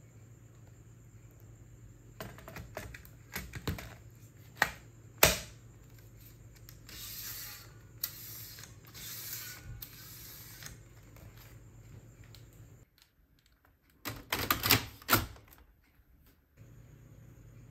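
Plastic clicks and knocks of a toner cartridge being fitted into a Brother drum unit, with a sharp snap about five seconds in as it seats. A few seconds of scraping follow, then another quick run of loud plastic clicks near the end.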